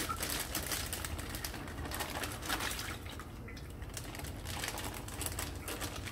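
Thin plastic bag crinkling and rustling in a dense run of small crackles as hands move the unscrewed plastic bottle-trap cup about inside it.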